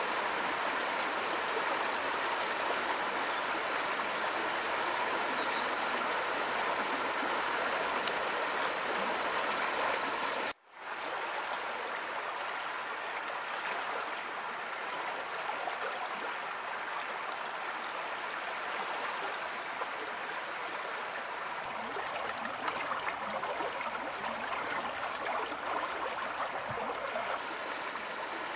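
A shallow stream rushing and burbling over stones, a steady water noise. During the first seven seconds or so a small bird calls above it in quick groups of high chirps; the sound cuts out for a moment about ten seconds in, then the water continues.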